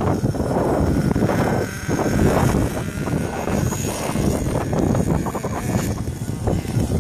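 HPI Savage XL radio-controlled monster truck's small engine buzzing as the truck drives off over rough ground, the revs rising and dropping with the throttle.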